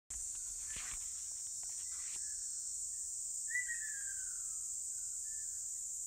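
A steady, high-pitched chorus of insects, with a few faint splashes in the first two seconds and one short, falling bird call about three and a half seconds in.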